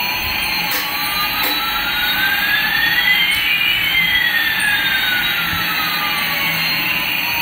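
Jet-engine sound effect: a steady hiss with two whines, one rising and one falling in pitch, crossing about halfway through.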